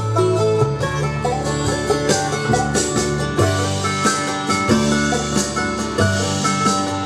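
Background music: a quick plucked-string tune in bluegrass style over a steady bass line.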